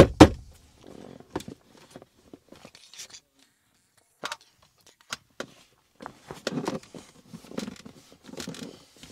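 Hand knocks on the plastic centre console of an Audi A3 8V, seating its trim clips, with a sharp loud knock right at the start. This is followed by scattered light clicks and the scraping and rubbing of the plastic trim as it is pressed and fitted into place.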